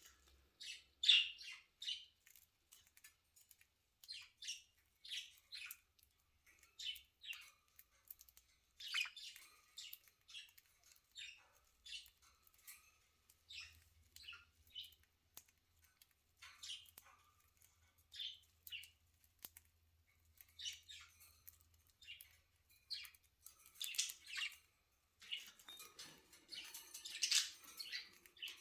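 Pet budgerigars chirping and chattering in a run of short, high chirps that comes in clusters, busiest near the start, around the middle and in the last few seconds.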